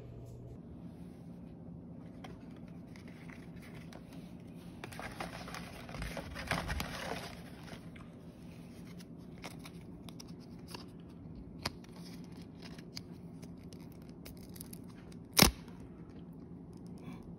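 Paper lottery tickets rustling and scraping as a hand rummages through a box of them, with small clicks and one sharp snap about three-quarters of the way through as a ticket is torn open. A low steady hum underneath.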